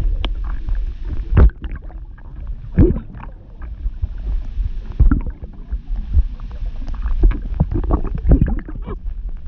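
Acted drowning underwater: a woman's bubbling and gurgling with muffled grunts, irregular bubble pops over a low rumble, with several louder gurgles.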